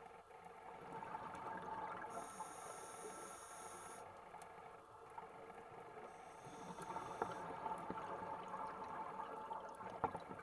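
Underwater sound of a scuba diver breathing through a regulator: a high hiss on each inhale, about every four seconds, with bubbling exhales in between and a few faint scattered clicks.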